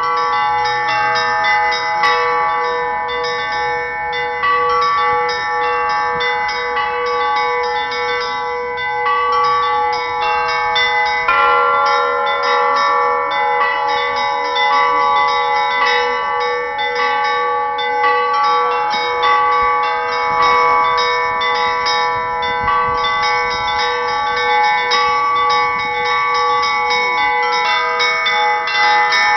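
Russian church bells rung together in a festive peal. The small high bells are struck in quick repeated patterns over the steadier ringing of the larger, deeper bells, and the many pitches overlap and sustain.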